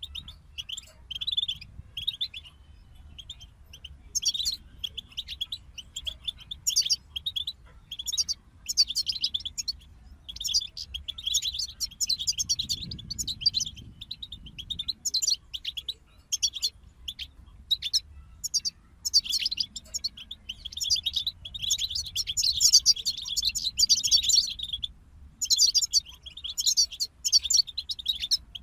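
European goldfinch song: rapid, high-pitched twittering and trilling phrases with short pauses between them, and one longer unbroken phrase about three-quarters of the way through.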